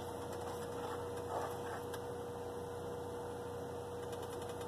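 A steady hum with one constant tone, and faintly, about a second and a half in, a plastic spoon stirring melted butter sauce in a stainless-steel pot.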